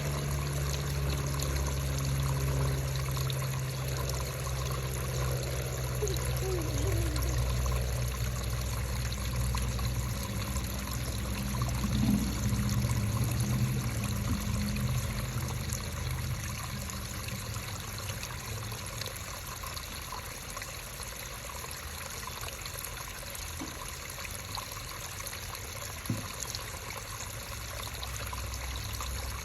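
Creek water trickling and babbling steadily, with a low rumble under it that eases about halfway through.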